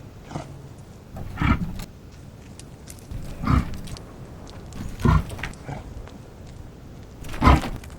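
Reindeer grunting: four short, low grunts about two seconds apart, the last the loudest.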